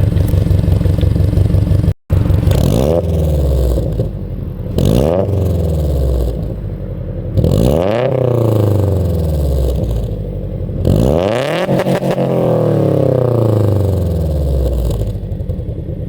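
Subaru BRZ's flat-four running through catless Gruppe-S unequal-length headers and a single-exit catback, free-revved four times from idle. Each rev climbs higher and lasts longer than the one before it, then drops back to the idle burble. The sound cuts out briefly about two seconds in.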